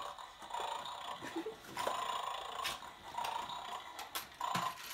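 Electronic snoring sound effect from the Don't Take Buster's Bones toy dog, repeating about every second and a half while the dog 'sleeps', with a few sharp clicks mixed in.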